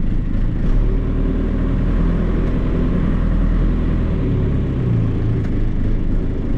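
John Deere 2755 tractor's diesel engine running steadily as the tractor is driven slowly, heard from inside the cab.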